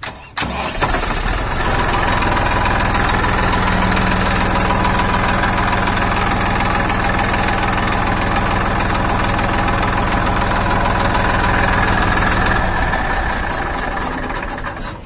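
Massey Ferguson 241 DI tractor's 2500 cc three-cylinder Simpson diesel engine starting within about a second, then idling steadily with a diesel knock. The sound falls away over the last two seconds or so.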